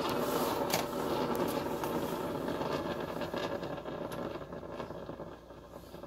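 Single-serve coffee maker running with a steady hum that fades over the last couple of seconds, with a sharp click a little under a second in.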